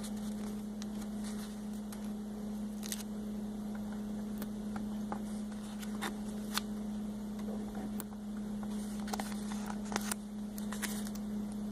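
Stickers being peeled off a sticker sheet and pressed onto a plastic toy: scattered small crackles and taps over a steady low hum.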